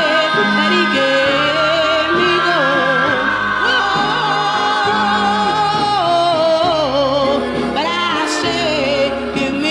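Music: a 1958 gospel vocal group recording from a 78 rpm record, voices singing in harmony, with long held notes that waver and a stepping low part beneath.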